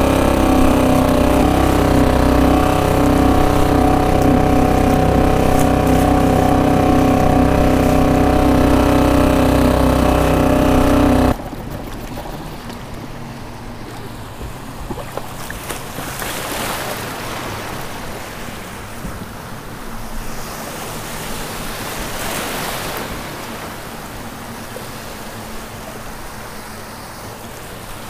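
Small outboard motor on a kayak running steadily under way, with a constant engine drone; about eleven seconds in it stops abruptly. After that, small waves break and slosh in shallow water, with wind on the microphone.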